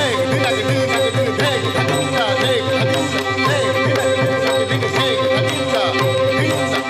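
Odissi dance accompaniment: mardala drum strokes in a steady repeating rhythm under a sustained drone, with a gliding, ornamented melodic line over it.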